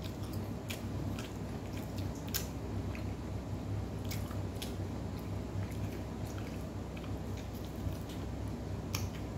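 Close-up chewing of kubos, Arabic flatbread that has gone chewy and somewhat hard, with scattered sharp clicks and crackles as pieces of the bread are torn and bitten, over a low steady hum.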